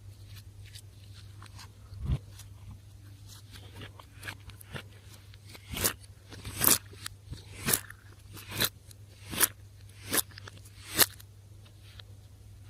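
Slime being worked by hand, giving sharp sticky pops and clicks: small ones at first, then louder ones about once a second through the second half.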